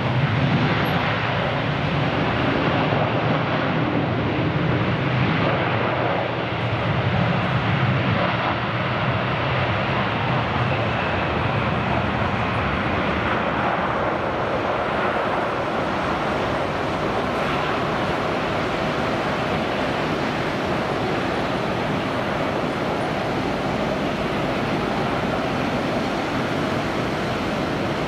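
Boeing 777 jet engines running near idle as the airliner taxis: a steady jet rumble and hiss. The low rumble is stronger in the first several seconds, and a faint whine rises and falls near the middle.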